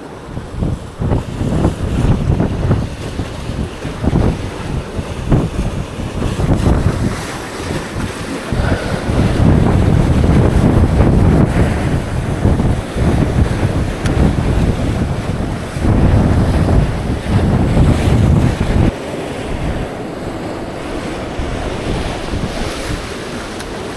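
Strong, gusty wind buffeting the microphone in heavy rumbling surges, with waves washing in beneath it. The gusts ease to a steadier rush for the last few seconds.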